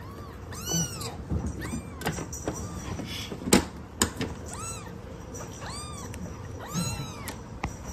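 Young kitten mewing repeatedly: short, high cries that rise and fall, about one a second. Two sharp knocks come in the middle as it is handled.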